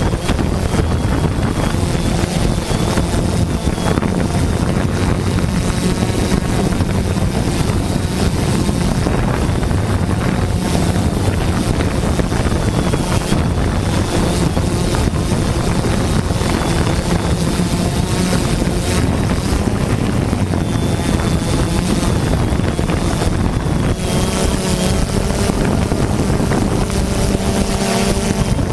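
A drone's motors and propellers buzzing steadily in flight, heard from the drone's own camera, with a faint high whine over the hum. Wind rushes over the microphone throughout.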